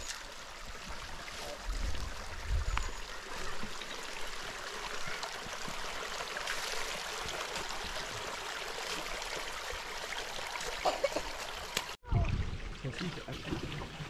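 Steady rush of water, with a few low bumps about two seconds in. It cuts off abruptly about twelve seconds in and is replaced by a lower rumble.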